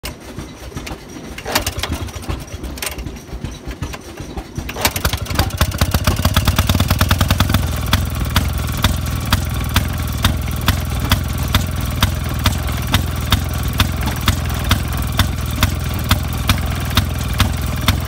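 The small gasoline engine of a Maytag washing machine being started, a two-stroke Maytag engine. A few irregular knocks come first. About five seconds in it catches and runs fast, then settles into a steady run with a sharp pop about twice a second.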